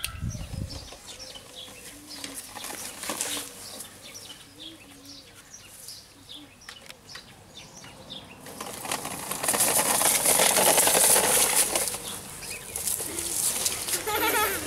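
Small birds chirping in short repeated calls. About halfway through, a loud rustling hiss takes over and drowns them out.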